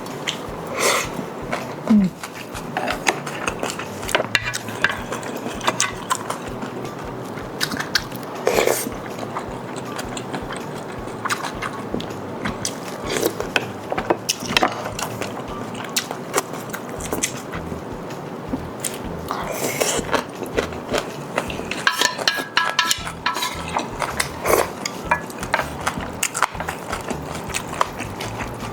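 Close-miked eating of ramen and grilled chicken: chewing and slurping, with frequent short clicks of utensils.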